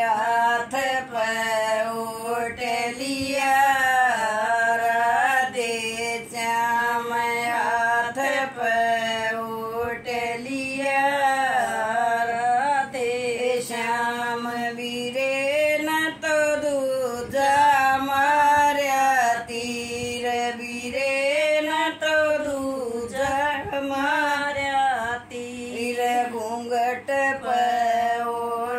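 An elderly woman singing a folk song solo and unaccompanied, in long drawn-out lines with wavering, ornamented held notes.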